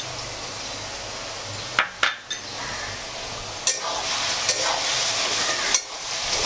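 Diced potatoes sizzling as they fry in hot oil in a metal kadhai, stirred with a metal spoon that clinks against the pan about five times. The sizzling grows louder near the end.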